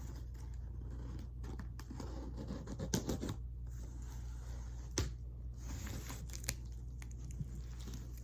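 A large cardboard box being cut and torn open at its packing tape: scratching and tearing, with a few sharp clicks, the loudest about five seconds in. A steady low hum runs underneath.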